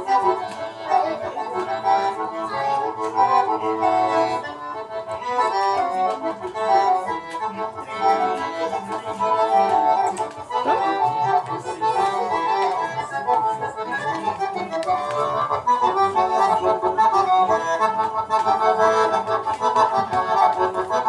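Accordion (gaita) playing continuously, a quick-moving melody over sustained chords and bass notes.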